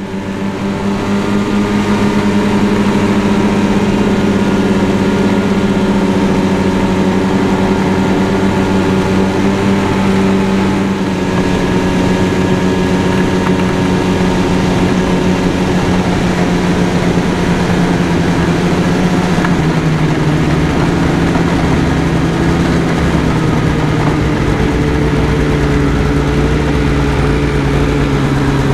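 Snowmobile engine running steadily while riding. Its note drops a step about two-thirds of the way through.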